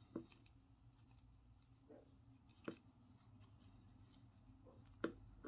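Near silence with a low room hum and a few soft, sharp clicks from hands working a crochet hook through bulky yarn. The loudest clicks come shortly after the start, in the middle and near the end.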